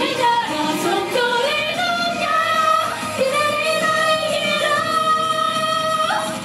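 Pop song with a woman singing over the backing track, holding a long note through the middle and sliding up in pitch near the end.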